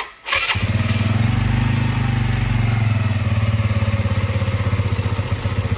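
Mash 125 Seventy Five's single-cylinder four-stroke engine starting right away on the electric starter and then idling steadily with an even, rapid beat.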